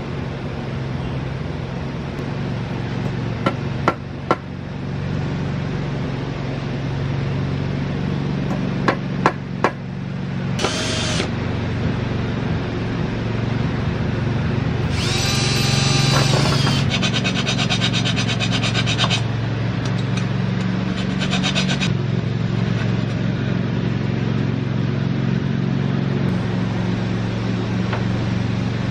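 Cordless drill boring into lumber in short runs. One run about halfway through whines for about two seconds, then winds down, and a fast rattle follows. A few sharp clicks come earlier, over a steady low hum.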